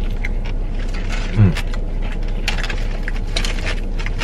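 Eating and food handling: a run of small crinkles and clicks from food and takeout packaging being handled, with one short 'mm' from a voice about a second and a half in, over a steady low hum.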